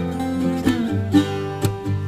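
Music: plucked-string instrumental, guitar-like, with a steady run of picked notes.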